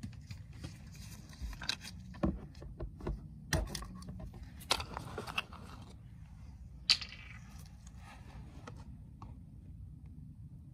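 Scattered plastic clicks, knocks and scrapes from a red plastic funnel and oil bottle being handled at an ATV's oil filler, with one sharp click about seven seconds in, over a low steady rumble.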